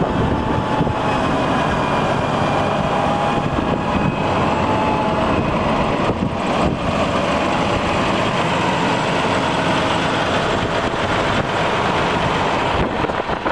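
2012 Versatile 450 4WD tractor's diesel engine running steadily at idle, with a faint steady whine over the engine noise.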